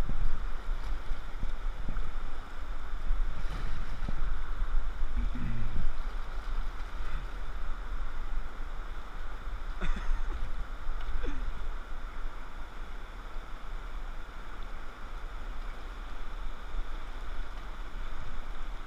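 Steady rush of shallow, muddy river rapids around a kayak, with a low rumble underneath and a few faint knocks.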